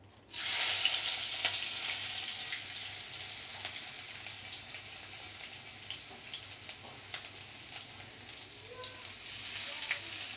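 Chopped onion, ginger, garlic and green chillies hitting hot mustard oil in a kadai. A sudden loud sizzle starts about half a second in, eases to a steady frying sizzle with scattered pops, and swells again near the end.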